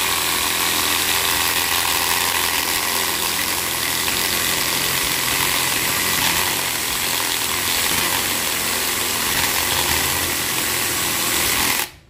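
Mini chainsaw attachment driven by a DeWalt 12 V drill-driver running steadily with its chain bearing on a thin 2x2 pine strip, struggling to cut through it. The motor stops abruptly near the end.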